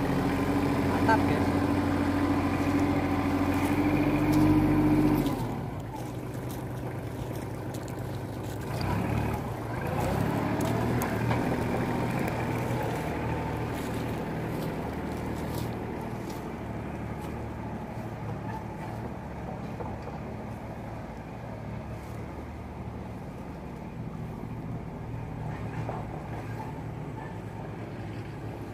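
A motor engine running with a steady hum that drops off suddenly about five seconds in, leaving a fainter engine hum that swells again briefly around ten seconds in.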